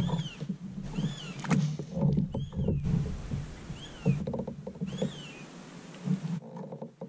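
Handling noise in a fishing kayak: irregular knocks and rubs on the hull as a spinning rod and line are worked. A bird repeats a short arched call several times over it.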